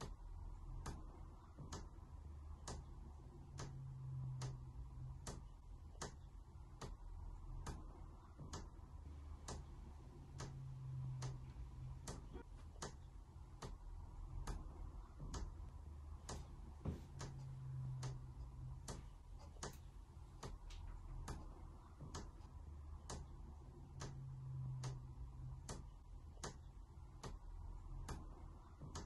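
A clock ticking steadily, evenly spaced ticks, over a low hum that swells every six or seven seconds.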